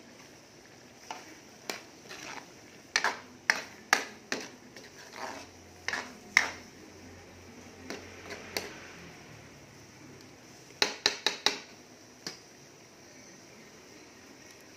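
A spatula stirring in a metal wok of simmering vegetables and meat, knocking and scraping against the pan in a series of sharp clanks, with a quick run of four knocks about three-quarters of the way through.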